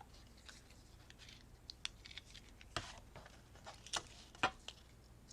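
Scattered light clicks, taps and paper rustles of craft supplies being handled and sorted on a tabletop, with a few sharper clicks in the second half.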